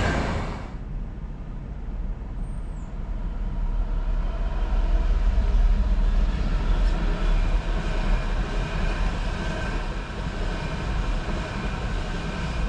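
Class 66 diesel freight locomotive passing over a level crossing: a steady low engine rumble and the roll of wheels, building to a peak about halfway through and then easing off. In the first second, the sound of a train that has just passed fades away.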